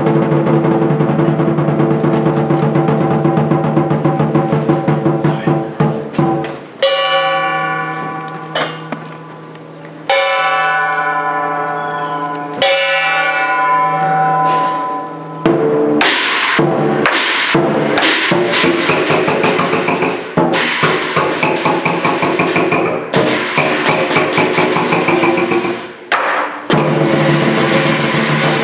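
Lion dance percussion: a big lion drum with clashing cymbals and a gong. It plays a fast, dense beat at first, drops to three single crashes left to ring out, about three seconds apart, then picks up a fast driving beat again about halfway through.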